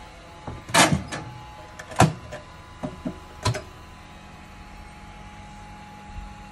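Knocks and clanks of a cemented leather sole being put onto the metal wire rack of a sole heat-activator oven, to heat the contact cement before the sole is pressed on. Several sharp knocks in the first three and a half seconds, the loudest about a second and two seconds in, then only a faint steady background.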